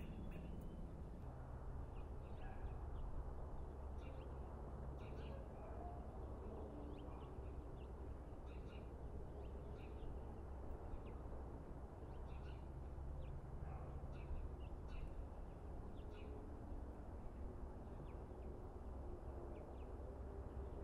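Birds calling with short, scattered chirps over a steady low background rumble.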